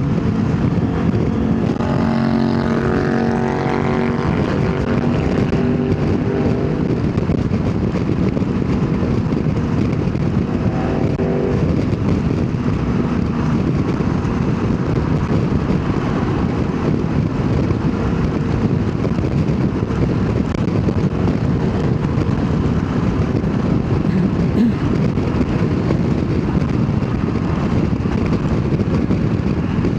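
Motorcycle engine running under way with heavy wind rush on a helmet-mounted camera; the engine note rises as the bike accelerates about two seconds in and again around ten seconds.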